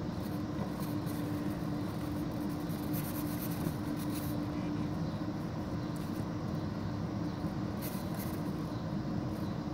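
Steady outdoor background rumble and hiss with a faint steady hum underneath, unchanging throughout.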